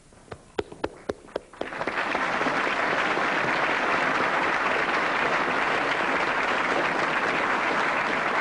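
Audience applauding: a few scattered claps at first, then about a second and a half in, full, steady applause from the whole hall.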